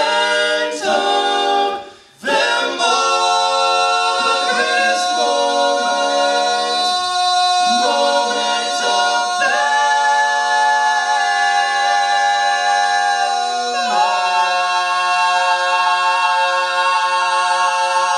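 Four-man male a cappella group singing into microphones: a few short chords, then one long held final chord from about ten seconds in that shifts once near the fourteen-second mark and cuts off at the end.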